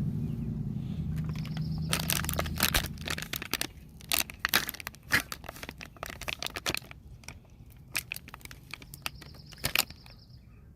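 Dense crackling and sharp clicks of something being handled close to the microphone, with a steady low hum under the first three seconds.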